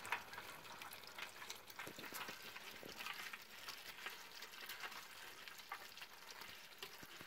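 A bucket full of live American signal crayfish crawling over one another: a faint, continuous crackle of many small clicks and scrapes as their shells and claws knock and rub together and against the bucket.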